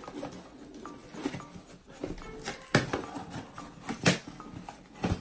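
An Amazon shipping package being handled and opened by hand: rustling and scraping with a few sharp knocks, the loudest about two and a half and four seconds in.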